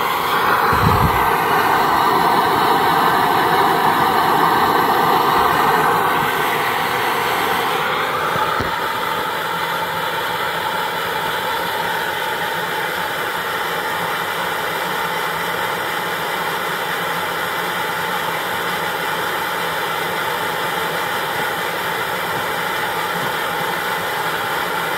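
Coleman Exponent multi-fuel backpacking stove burner running wide open, its flame making a steady rushing roar, really raging. The roar eases slightly about seven to eight seconds in and then holds steady at the lower level.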